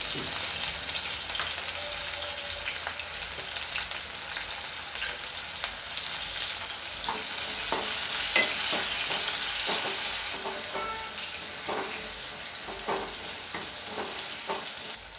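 Raw mango slices and green chillies sizzling in hot oil in a kadai, stirred with a wooden spatula. The frying hiss swells about eight seconds in, and the spatula's scrapes and knocks against the pan come often in the second half.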